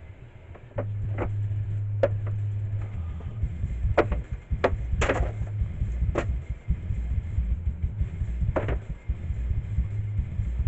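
Low, bass-heavy background music starting abruptly about a second in, with several irregular sharp knocks of plywood panels being handled and set down.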